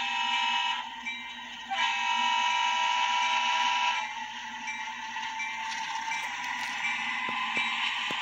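Simulated diesel locomotive air horn from a TCS WOWDiesel sound decoder in an HO scale F7 model: a short blast, then a longer one of about two seconds. Under it the decoder's engine sound runs as a steady hum, with a few light clicks near the end.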